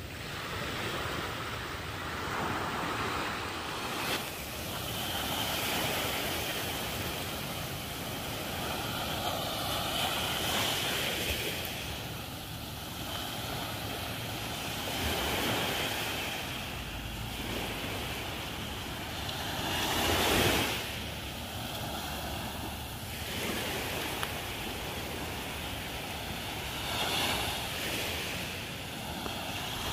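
Small waves breaking and washing up the sand at the water's edge, the surf swelling and easing every few seconds, loudest about two-thirds of the way through.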